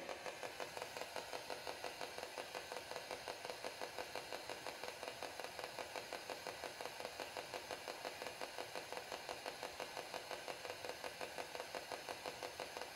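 Faint, rapid, even pulsing at about six to seven beats a second from a small electronic or mechanical device.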